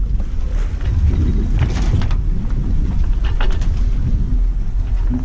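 Wind rumbling on the microphone aboard a Sun Odyssey 33.1 sailing yacht under way in a choppy sea. A couple of brief hissing rushes of water against the hull come about two and three and a half seconds in.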